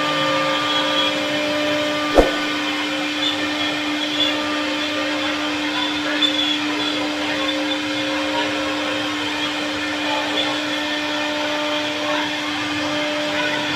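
CNC wood router running steadily: a constant spindle tone over a hissing noise, with a single sharp click about two seconds in.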